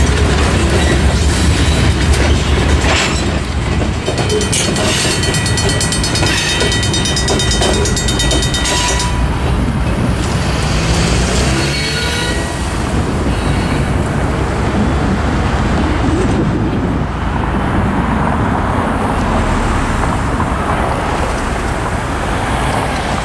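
The rear of a freight train, covered hopper cars, rumbles and clatters over the crossing for the first few seconds while the crossing's Safetran mechanical bell rings rapidly; the bell stops about nine seconds in. After that, road traffic: a car engine speeding up and tyres of cars driving over the crossing.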